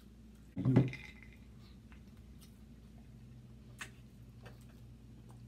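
Eating noises from a seafood boil: scattered small clicks and mouth sounds while picking at crab and shrimp. One short loud knock comes about half a second in, and a faint steady low hum sets in about halfway through.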